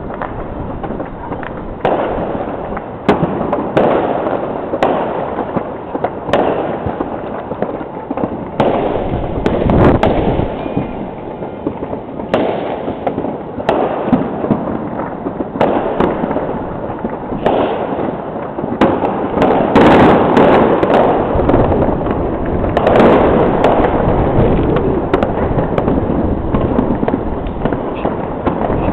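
Many fireworks and firecrackers going off across the city at once: a continuous crackle of overlapping bangs, with denser volleys about twenty and twenty-three seconds in.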